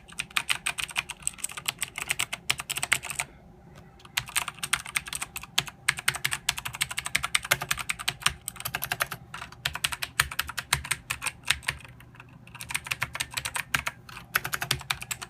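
Fast typing on a Razer BlackWidow Ultimate mechanical keyboard with Razer Green clicky switches: dense, rapid key clicks in bursts, broken by short pauses about 3½, 6, 9, 12 and 14 seconds in.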